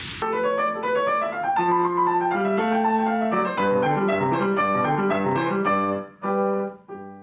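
Solo keyboard music: a flowing run of overlapping notes over held bass notes, then two separate chords near the end, the last one dying away.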